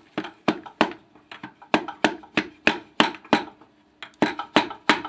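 Sharp hammer taps, about three a second with a short pause past the middle, knocking a piston and connecting rod out through the cylinder bore of a Mercedes M102 four-cylinder engine. The piston goes tight in its bore, which the mechanic thinks may be carbon buildup.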